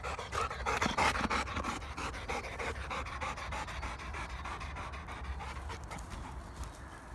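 Labrador retriever panting fast and hard, out of breath from running uphill and downhill; the panting eases toward the end.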